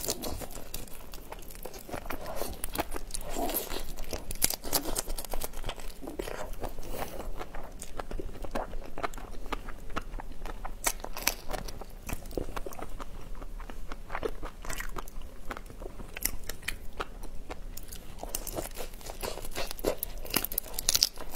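Close-miked crunching and chewing of whole shell-on prawns: many sharp, irregular cracks of shell being bitten, mixed with wet chewing.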